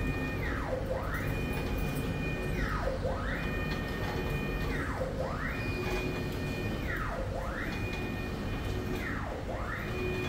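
Wall printing machine's print-head carriage sweeping back and forth: its motor whine holds a steady high pitch, then dips low and climbs back as the carriage slows, reverses and speeds up again, about once every two seconds.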